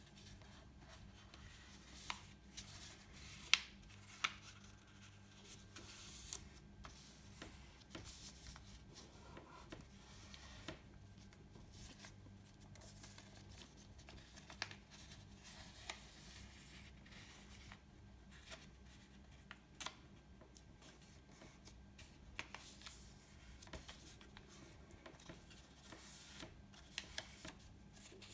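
A sheet of paper being folded and creased by hand: soft rustling with sharp crackles and taps scattered through, over a faint steady low hum.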